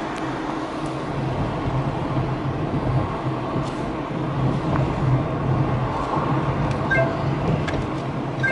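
Car driving along a city street, heard from inside the cabin: a steady low engine and road hum.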